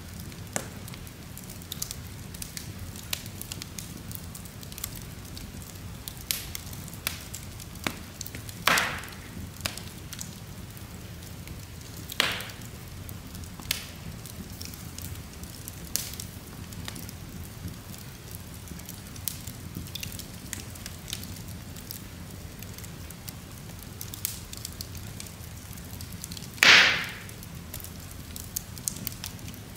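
Split logs burning in an open fireplace: a steady low rumble of flames with frequent sharp crackles, and three louder pops about 9, 12 and 27 seconds in, the last one the loudest.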